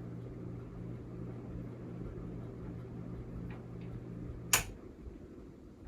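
Hampton Bay Quick Connect ceiling fan running on high with a steady electrical motor hum. About four and a half seconds in, a single sharp click of its switch turns it off, and the hum stops as the fan starts to spin down.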